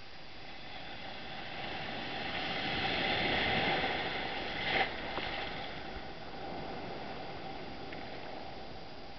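Shallow sea surf washing in close to the microphone: a wave swells up, breaks with a sharp splash about five seconds in, then the wash eases back to a steady lower rush.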